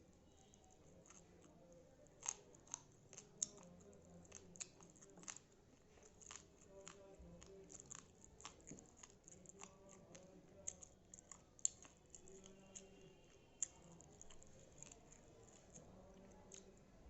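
Quiet eating sounds: a person chewing a rice meal, with irregular soft mouth clicks and smacks several times a second.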